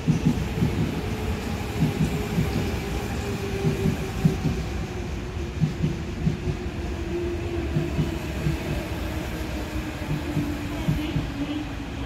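Subway electric train rolling into the station and slowing, its wheels knocking over rail joints, with a motor whine that falls steadily in pitch as it brakes.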